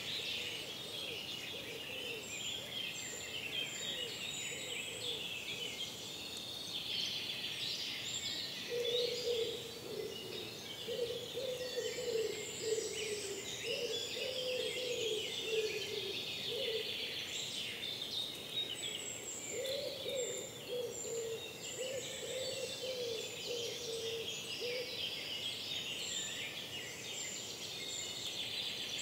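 Forest dawn chorus: many songbirds singing at once, overlapping continuously. A lower, repeated call from another bird joins in twice, through the middle.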